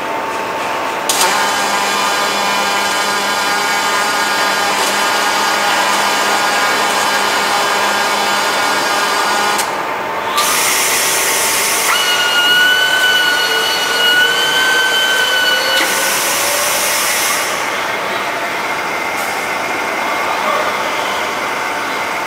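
Robotic welding cell machinery running: a steady electric motor whine for the first half. Then bursts of hissing, with a steady high whine between them.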